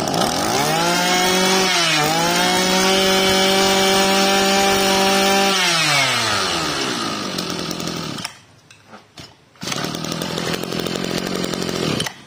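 Mitsubishi TL261 brush cutter's 26cc two-stroke engine revved up by hand at the carburetor and held at high speed for about five seconds, with a brief dip about two seconds in. Then the throttle is let off and it winds down. After a short break near eight seconds, the engine note returns steady at a somewhat lower speed.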